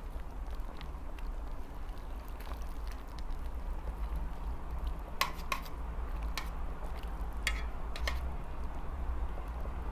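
Tongs stirring glass noodles in a stainless steel pot of simmering mala tang broth, clicking sharply against the pot several times about halfway through, over a steady low hum.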